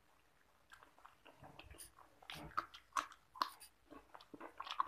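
Close eating sounds of a person eating rice with egg curry by hand: an irregular run of wet smacks and clicks, sparse at first and coming thick and fast in the second half.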